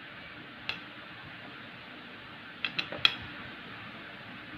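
Knife cutting through a butter cake loaf, the blade clicking against the plate once under a second in and then in a quick run of about four clicks around three seconds in, over a steady hiss.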